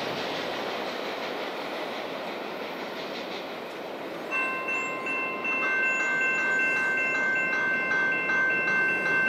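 A receding freight train rumbles down the track, then about four seconds in a grade-crossing warning bell starts ringing in rapid, even strokes and becomes the loudest sound.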